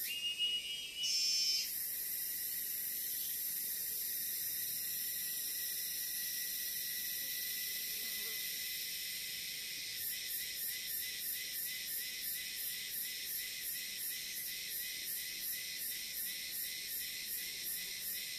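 Chorus of tropical forest insects buzzing steadily at a high pitch, with a brief louder chirp in the first second and a half. From about ten seconds in, the chorus takes on an even pulsing beat of two to three pulses a second.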